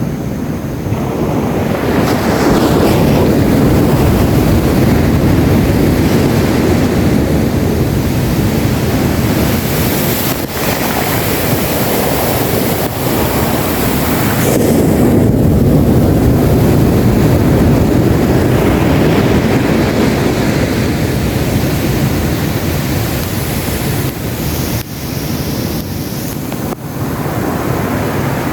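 Sea waves breaking and washing up a sandy beach, a continuous surf that swells louder a couple of seconds in and again about halfway through, with wind buffeting the microphone.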